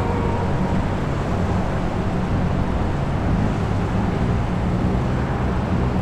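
A steady engine drone: a low, even hum over a constant rushing noise.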